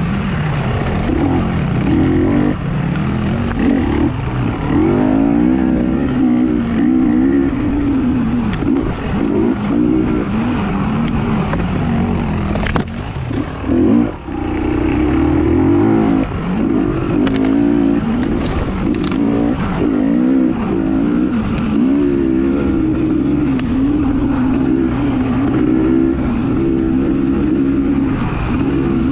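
Racing engine running hard, its pitch rising and falling again and again as it accelerates and backs off. There is a sharp knock about thirteen seconds in.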